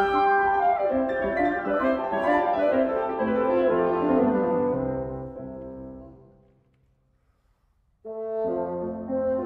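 Clarinet, bassoon and piano trio playing a fast movement; the music dies away to silence about six seconds in, then the trio comes back in abruptly about a second and a half later.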